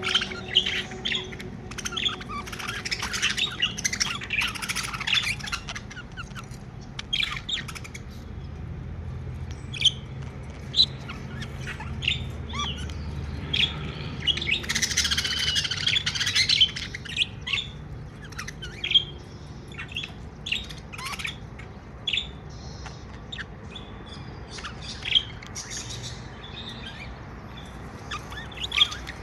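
Pet budgerigars chirping and chattering: a dense burst of warbling chatter in the first few seconds and another around the middle, with sharp single chirps scattered in between.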